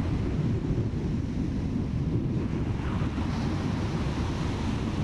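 Wind buffeting the microphone in a steady low rumble, over the wash of ocean surf.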